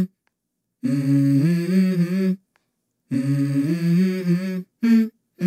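A woman humming a simple tune with her lips closed, a short phrase of a few held notes stepping up, heard three times over, with abrupt dead-silent breaks between the phrases.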